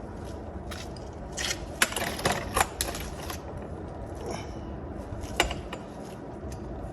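Ratchet with a 10 mm socket clicking and metal tool knocks while undercover bolts are loosened: a scattered run of sharp clicks, thickest between about one and a half and three and a half seconds in, with one more about five seconds in.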